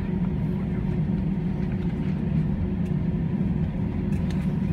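Cabin noise of an Airbus A321-231 taxiing on its IAE V2500 engines at idle thrust: a steady low rumble with a faint steady hum over it.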